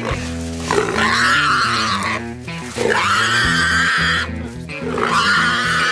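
A feral hog, held down by catch dogs, squealing in three long screams over background music.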